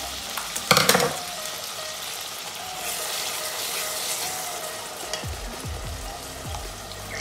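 Minced meat (kefta) sizzling as it browns in a stainless steel pot, with a sharp clatter of utensil on pot just under a second in. From about five seconds in, tomato purée glugs out of a carton into the pot.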